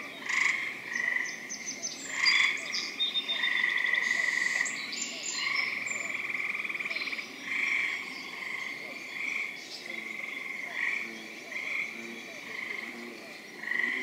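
A chorus of gray treefrogs, their pulsed trills, each a second or so long, overlapping one after another without a break. Birds sing higher over the trills in the first few seconds.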